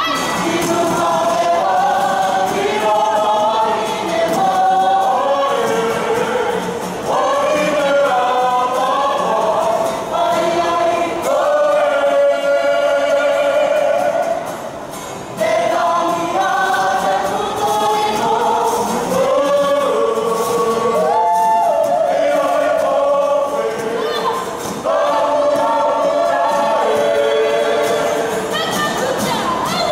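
A Māori group singing a waiata together in unison and harmony, with acoustic guitar accompaniment. The singing pauses briefly about halfway through, then resumes.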